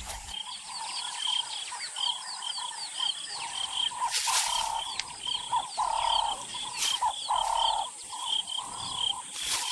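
Savanna dusk wildlife ambience: a rapid series of short, high chirps repeated over and over, with lower calls coming and going beneath them. Three brief rushing bursts come about 4, 7 and 9½ seconds in.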